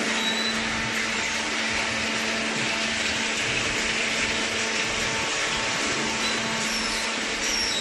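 Cardboard baler's motor running steadily: a continuous whirring machine noise with a constant low hum.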